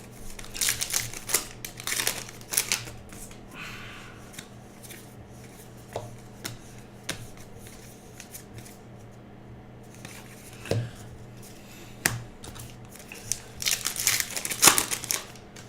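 Trading-card packs and cards being handled: bursts of crinkling wrapper and rustling cards near the start and again near the end, with a few light taps in between.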